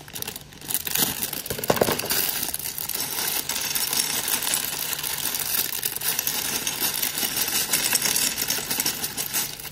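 Sealed plastic bag of Lego bricks crinkling as it is pulled and squeezed to open it, with the small plastic bricks inside clicking and rattling against each other.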